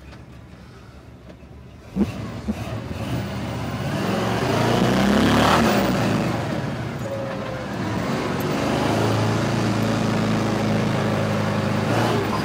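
Small-block Chevy V8 truck engine pulling hard: after a sharp knock about two seconds in, the engine rises in pitch and is loudest around the middle, then settles into a steady, low, bass-heavy drone.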